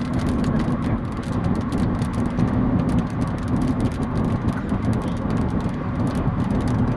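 Steady low rumbling noise with a faint hum, holding level throughout without any sharp crack or boom.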